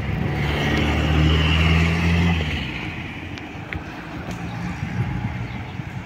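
A car driving past, its engine and tyre noise swelling to a peak about a second and a half in, then fading away.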